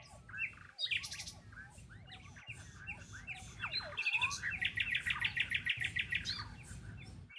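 Many birds chirping and calling, with a fast, even run of notes lasting about two seconds from around four seconds in. Under them is the faint low hum of an MRI scanner, with short breaks every second and a half or so.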